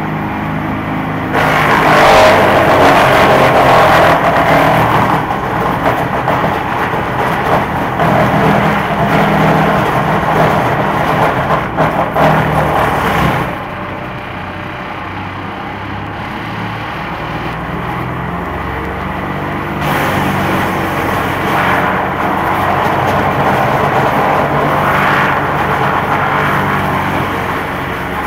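Mobile wood chipper's 41 hp petrol engine running steadily while branches are fed in and chipped. The loud chipping noise starts about a second and a half in and cuts off about halfway through. It picks up again as another branch goes in near the end.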